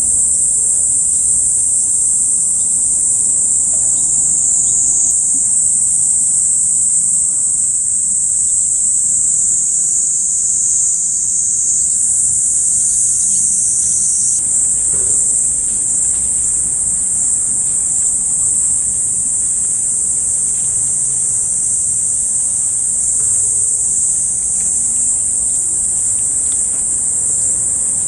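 Dense, steady chorus of insects shrilling: a high-pitched, continuous sound with no pauses.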